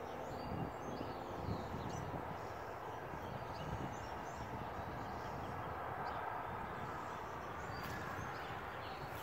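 Outdoor dawn ambience: a steady low rushing noise with faint, scattered bird chirps throughout.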